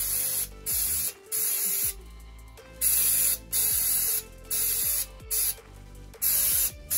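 Aerosol can of Holts brake cleaner sprayed in short hissing bursts, about eight in seven seconds with brief gaps between, onto a nail gun's dismantled head and fan assembly to flush off carbon gunk.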